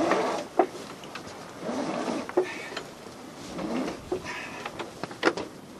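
A sailing yacht's traveller control line being hauled across in a few pulls. Each pull is a rushing swish that ends in a sharp click or knock, about every two seconds, over wind and water noise.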